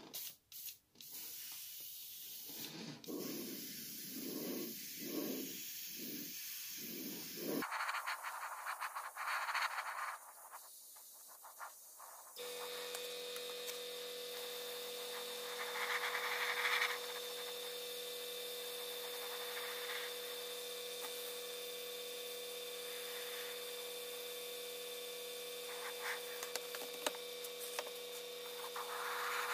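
Small airbrush compressor running with a steady hum, with hissing of air and paint from the airbrush swelling in short passes. The sound changes abruptly twice in the first half.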